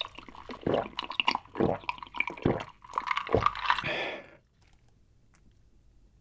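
Gulping an iced drink straight from a glass jar: about four loud swallows roughly a second apart, with the liquid sloshing in the jar. The drinking stops about four seconds in.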